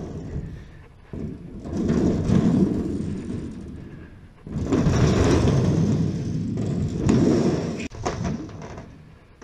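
Large aluminium checker plate dragged and scraped across a truck's roof in three long scraping pushes, with a few sharp clicks near the end of the last one.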